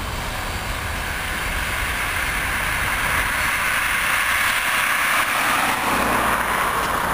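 A car approaching on the road alongside the tracks, its tyre and engine noise swelling into a steady rush through the second half. Underneath, a low rumble from the departing coal train fades.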